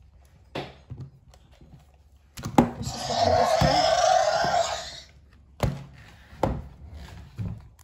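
Electronic roar from a Jurassic World Primal Attack Carnotaurus toy's speaker, set off by moving its tail, lasting about three seconds. A few sharp knocks of the plastic toy figures on the table follow.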